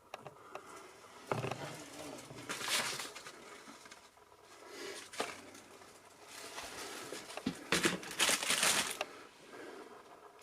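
Irregular rustling and crinkling of clutter being handled and pushed aside, with a few sharp clicks and knocks; the loudest spells come about a second and a half in and again near the end.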